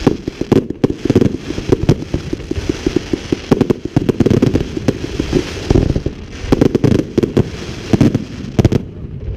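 Fireworks display: a dense, rapid barrage of booming shell bursts, several a second and overlapping, thinning out near the end.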